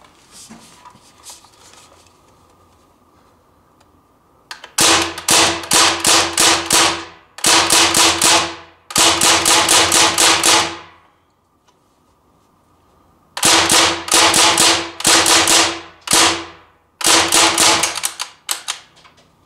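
CO2-powered replica Thompson M1A1 BB submachine gun firing in several quick runs of sharp pops with short pauses between them, starting about five seconds in. The shots empty its 30-round magazine.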